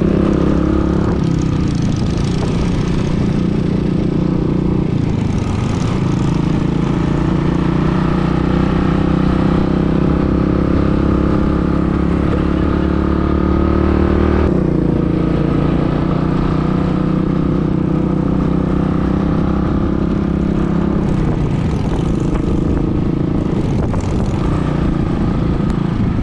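Motorcycle engine running steadily at cruising speed, heard from on board the bike, its pitch shifting a few times as the throttle or gear changes.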